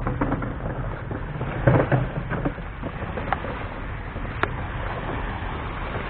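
Steady low outdoor rumble, with a few brief clicks.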